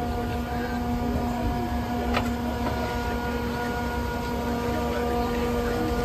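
Volumetric concrete mixer truck running, a steady mechanical hum with a low rumble from its engine and hydraulic drive as the mixing auger turns over the tub. A single sharp click about two seconds in.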